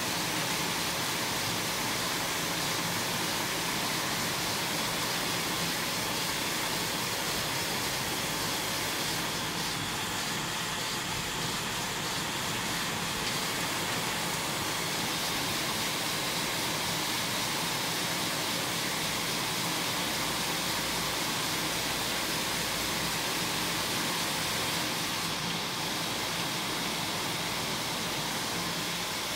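Steady machinery noise of sock knitting machines running in a factory: an even, hiss-like drone without distinct strokes.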